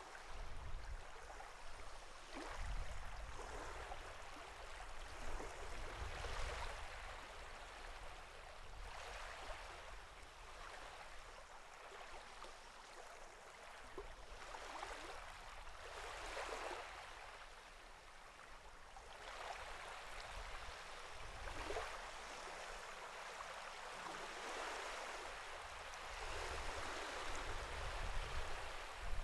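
Sea water lapping and splashing in small waves, swelling and easing every few seconds over a low rumble.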